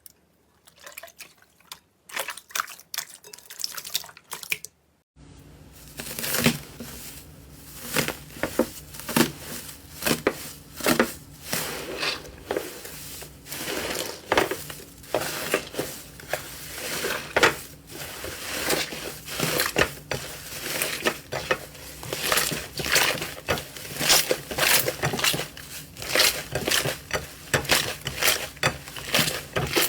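Slime being squished and played with: fast irregular wet clicks, pops and crackles. About five seconds in the sound changes to a louder, denser run of pops over a faint steady hum.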